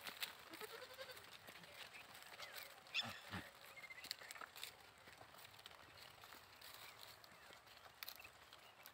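Goats browsing on a bush: faint rustling of leaves and scattered snapping of twigs, with one sharper, louder crack about three seconds in.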